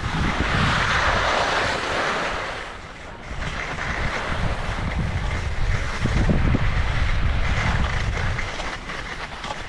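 Skis sliding and scraping over slushy snow while wind rushes over the microphone; the sound dips briefly about three seconds in, then comes back with a heavier low rumble.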